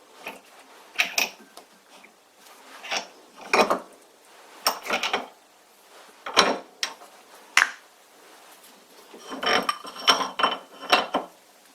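Metal lathe parts knocking and clinking as the spindle and pulley assembly is taken apart: a scattered series of separate knocks, then a quicker cluster of clinks with a metallic ring near the end.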